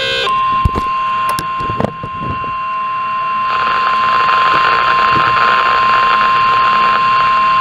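NOAA Weather Radio warning alarm tone: one long, steady high beep, the signal that a warning broadcast follows. A few clicks sound in the first two seconds, and a hiss rises under the tone about three and a half seconds in.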